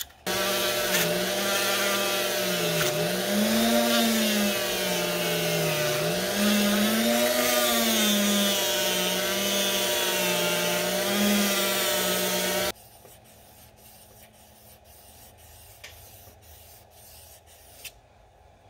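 Hand-held rotary tool running with a small buffing wheel pressed against a small brass fitting, its motor hum dipping and recovering in pitch as it is loaded. It cuts off abruptly about twelve seconds in, leaving faint noise with a couple of light clicks.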